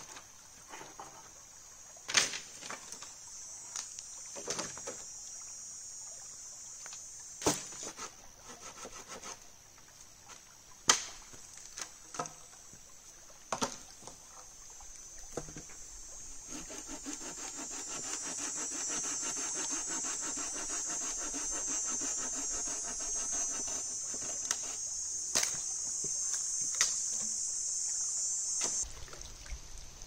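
Dry branches cracking and knocking as they are dragged and handled. Then, about halfway through, a hand saw cuts through a dead branch in steady, even strokes for about twelve seconds. A high steady hiss runs under it and cuts off near the end.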